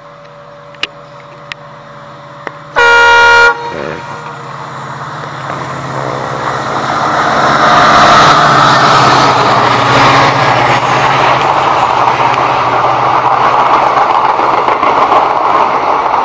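WDP4D diesel-electric locomotive with a 16-cylinder EMD two-stroke engine, droning as it approaches. It sounds one short horn blast about three seconds in, the loudest sound, then passes close, its engine noise and the rumble of the passenger coaches on the rails swelling to a peak about eight seconds in and staying loud.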